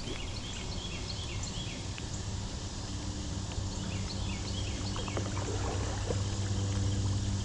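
A small bird chirping in quick runs of short high notes, several a second, over a steady low hum and the even wash of river background noise.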